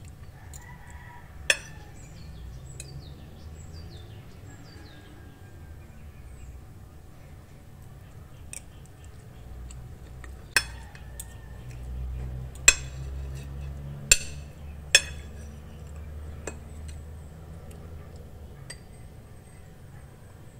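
Metal fork and spoon clinking against a plate and a small glass bowl while eating: five sharp, brief clinks, one early and four close together in the second half.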